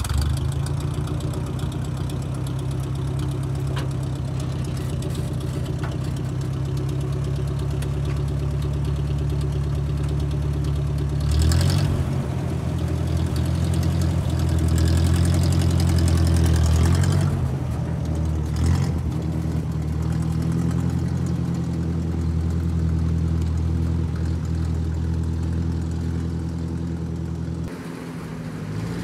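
Ford 641 Workmaster tractor's four-cylinder gasoline engine running as the tractor drives off. It runs steadily and grows louder for several seconds in the middle.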